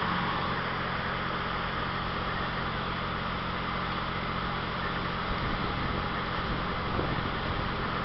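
Diesel engine of a Cat 315C hydraulic excavator running steadily at work, a constant low hum under a steady mechanical hiss.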